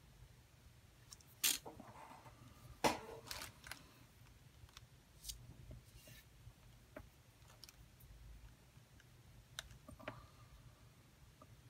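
Sparse, faint clicks and taps from hands handling sequins and a glue bottle on a paper scrapbook page. The two sharpest clicks come about one and a half and three seconds in.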